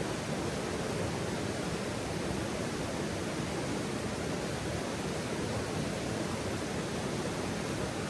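Steady, even rushing noise like flowing water, with no distinct crackles or pops standing out.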